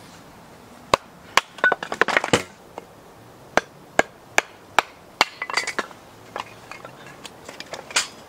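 Repeated sharp strikes of a hand tool. Two single knocks, then a clattering stretch, then a steady run of five blows about two and a half a second apart, with more clatter and one last strike near the end.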